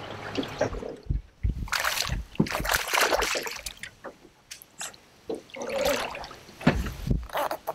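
Water splashing and sloshing in several bursts as a hooked largemouth bass thrashes at the surface beside the boat while it is being landed.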